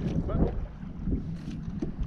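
Wind buffeting the microphone, a steady low rumble, with a few faint short knocks.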